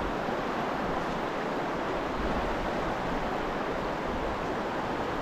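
Steady rushing of a fast-flowing river current.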